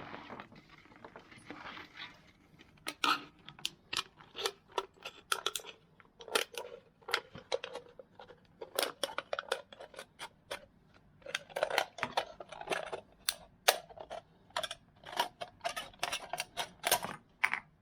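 Irregular sharp clicks and crinkles of thin aluminum from a drink can being handled and worked around a hammer head, in uneven clusters.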